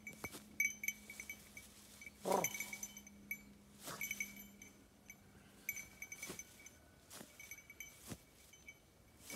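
Small bell on the English Pointer's collar tinkling irregularly as the dog moves through the grass, with a few short noises mixed in, the loudest about two seconds in.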